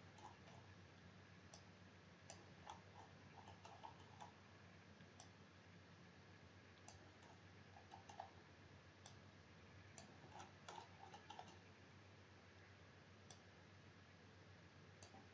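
Faint, irregular clicks of a computer mouse, some single and some in quick runs of several, over near-silent room tone.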